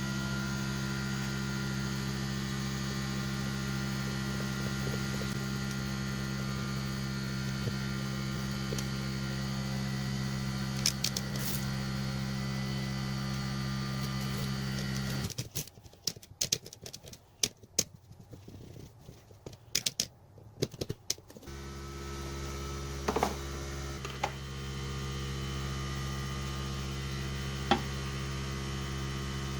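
Steady electrical hum, which drops away for about six seconds midway. During that gap comes a run of sharp clicks and clacks from the Royal No. 5 typewriter's keys and mechanism being worked. A few single clicks follow after the hum returns.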